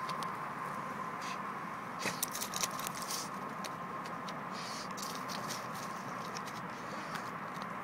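A Basenji-mix dog digging in loose dry soil with its front paws: irregular bursts of quick scratching, with dirt and dead leaves pattering, the busiest about two seconds in.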